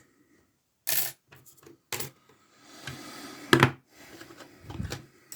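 Metal lock-picking tools clinking and rattling as a pick is taken from a set, in a few sharp clicks with rustling in between.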